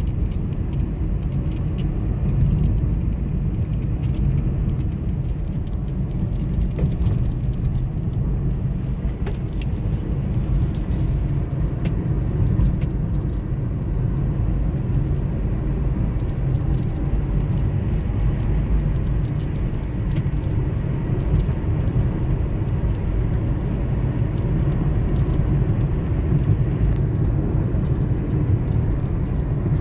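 Steady low rumble of a car cruising on a concrete road, heard from inside the cabin: tyre and road noise with the engine underneath.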